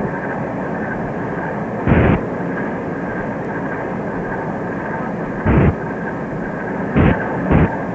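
Cartoon soundtrack with a steady droning hiss, broken by four short rubbing sound effects, about two, five and a half, seven and seven and a half seconds in, for a pink rubber eraser moving and erasing a pencil drawing.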